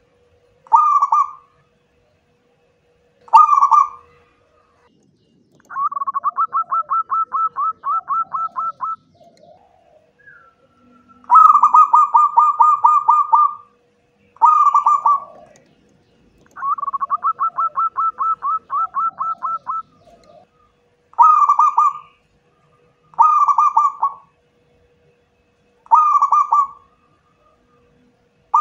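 Zebra dove (perkutut) cooing: short single coos alternating with three longer runs of rapid staccato coo notes, each about three seconds long.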